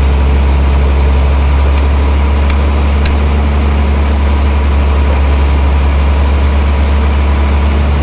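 Sawmill machinery running: a loud, steady low hum under a dense mechanical din, with a few faint ticks.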